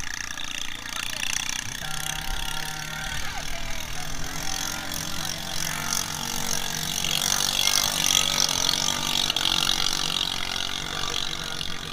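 Drag-racing boat's engine running at speed across the water, mixed with crowd voices; the crowd noise swells a little after the middle.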